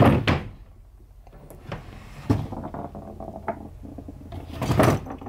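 Knocks and clatters of objects being handled and moved about while someone rummages through belongings, with a louder cluster of knocks near the end.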